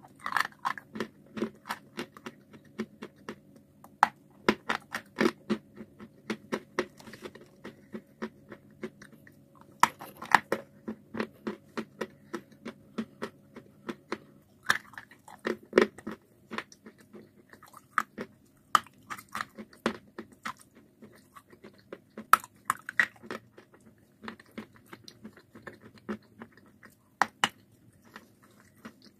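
Chalk and clay being bitten and chewed: a fast run of sharp, crisp crunches in clusters, with short pauses between bites.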